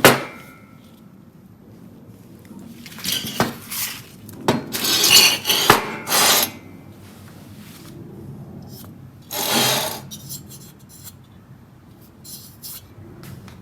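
Handling noises from a vapor-blasted aluminium cylinder head: rough rubbing and scraping in a few bursts of a second or two, with scattered clicks and knocks between them.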